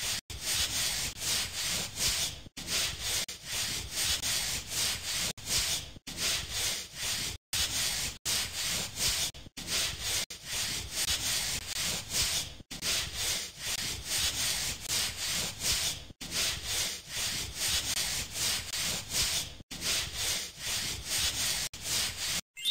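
Scrubbing brush rubbing over skin with foam: quick, scratchy scrubbing strokes, several a second, broken by short silent gaps.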